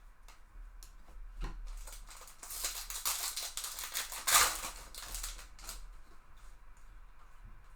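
Trading card box and pack packaging being opened by hand: light clicks and taps, with a stretch of crinkling and tearing around the middle that is loudest a little past four seconds in.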